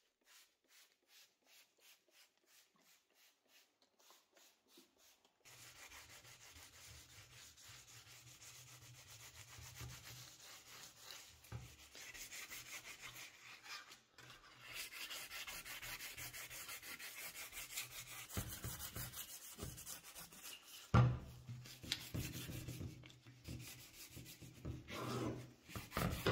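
A trigger spray bottle of wax polish squirted in quick, evenly spaced pulses, then a cloth rubbing and wiping the wax over powder-coated cast-iron parts, growing louder, with a single knock about three-quarters of the way through.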